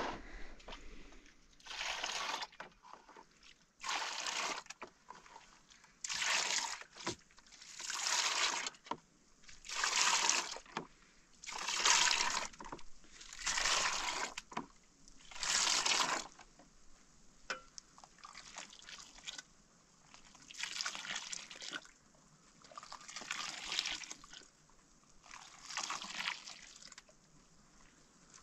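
Milk being scooped with a metal ladle and poured back in a stream into a basin, over and over about every two seconds; the pours get softer in the second half.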